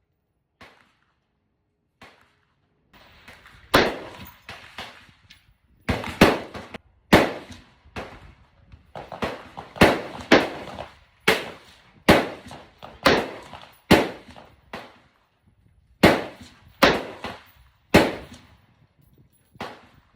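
A string of about fifteen rifle shots fired with .223 Remington ammunition, roughly one a second and sometimes two in quick succession, each with a short echoing tail. Before the string starts there are a few faint, distant pops.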